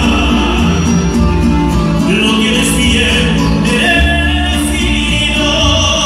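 Mariachi band playing live: trumpets and long held melody notes over a steady bass line.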